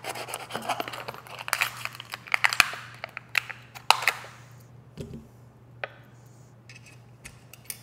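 Hands handling crinkly plastic packaging and small rifle accessory parts: dense rustling and crinkling with many small clicks and taps for about four seconds, then only a few scattered clicks.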